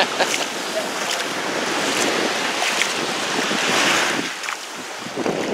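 Small waves washing over the shore at the water's edge, mixed with wind buffeting the microphone. The wash swells about four seconds in, then eases off.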